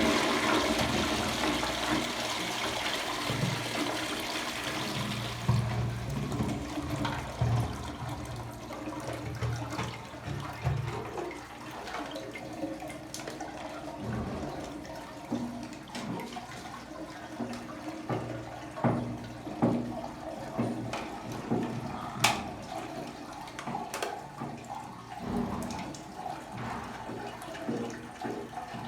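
Jaquar concealed cistern flushing: a sudden rush of water that eases after about five seconds, followed by the cistern refilling with a lower, steady water sound and scattered knocks and clicks.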